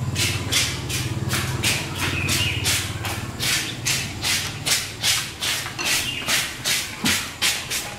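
A steady, rhythmic rattle of about three short strokes a second, with a low hum under the first half.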